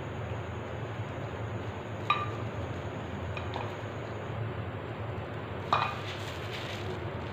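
Three light clinks of a utensil against dishes, about two, three and a half and almost six seconds in, the first with a short ring, over a steady low hum.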